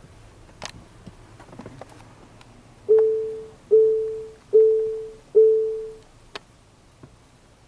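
Electronic chime: one mid-pitched tone that starts sharply and fades, sounded four times about three-quarters of a second apart, beginning about three seconds in, with a few faint clicks around it.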